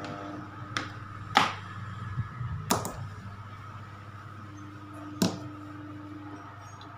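A power plug pulled from a power strip and the cord handled: a few sharp clicks and knocks, the loudest about a second and a half in, another pair near the three-second mark and a last one a little after five seconds, over a steady low hum.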